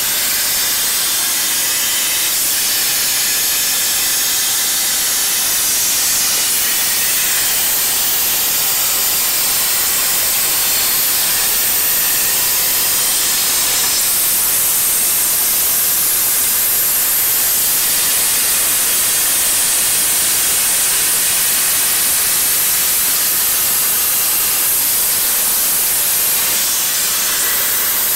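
CNC plasma cutter torch cutting through 2.5 mm 316 stainless steel sheet: a loud, steady hiss, its tone shifting slightly a few times.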